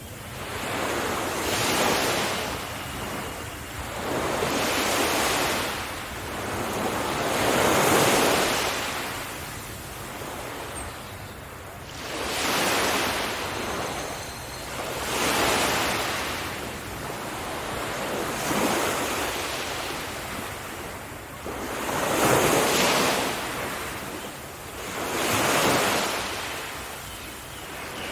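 Ocean surf breaking on a beach, each wave swelling and washing back, about every three seconds.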